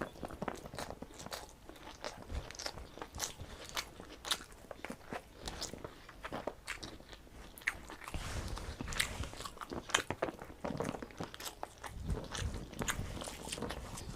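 Close-up chewing and crunching of rice with crisp fried bitter gourd and potato: many small, irregular crunches and wet mouth clicks, with a few duller low rumbles in the second half.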